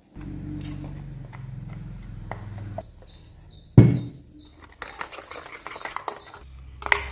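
A metal spoon stirring and scraping flour batter in a steel bowl, with clinks, one sharp knock about four seconds in and a clatter near the end. A low hum runs through the first few seconds, and a bird chirps repeatedly, about three times a second, in the middle.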